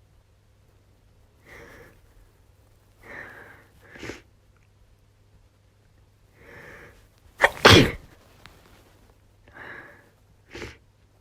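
A woman with a head cold sneezing: a few short breaths build up over the first seven seconds, then one loud sneeze about seven and a half seconds in, followed by two more short breaths.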